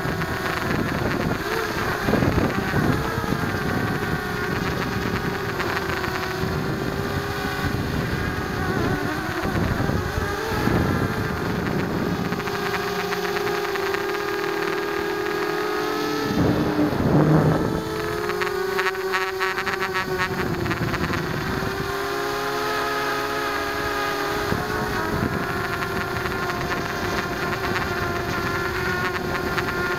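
Blade 200 QX quadcopter's four electric motors and propellers whining, heard through the onboard keychain camera's microphone, the pitch rising and falling with the throttle. Gusts of rushing wind noise come and go, the loudest about 17 seconds in as the pitch dips and then climbs back.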